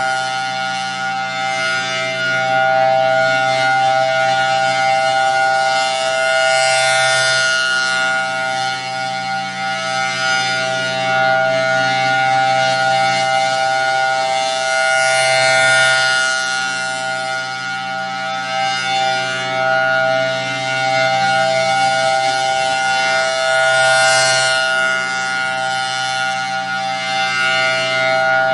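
Federal Signal Thunderbolt 1003 outdoor warning siren sounding its full-alert signal: one steady, unbroken tone with no rise or fall in pitch. It swells louder and fades about every four seconds as the rotating head sweeps past.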